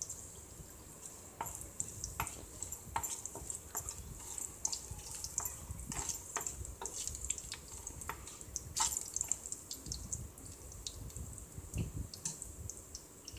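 Tempering of shallots, mustard seeds, fenugreek and curry leaves frying in hot oil in a pan: a steady sizzle with many irregular crackles and pops as it is stirred.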